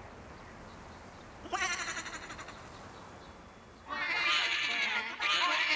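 Cartoon frog chorus, voiced by people: one wavering, bleating call about 1.5 s in, then from about 4 s many warbling voices croaking together.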